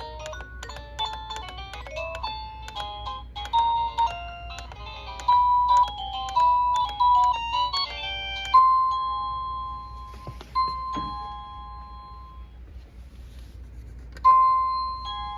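Wireless doorbell receiver playing its electronic chime tunes while the chimes are stepped through: a quick melody of beeping notes for the first eight seconds or so, then single ringing tones that fade out. The loudest tone comes about eight and a half seconds in, with others near eleven and fourteen seconds.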